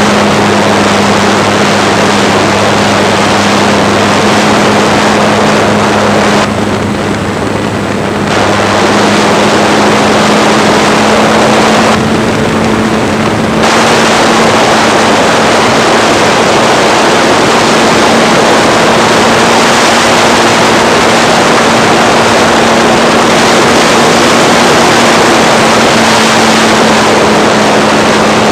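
RC model airplane's motor and propeller running steadily at high throttle, heard from a camera mounted on the plane, with a steady drone and a rush of airflow noise. The rush drops briefly twice, about six and twelve seconds in.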